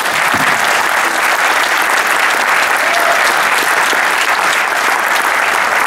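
Audience applauding steadily: dense, sustained clapping from many hands.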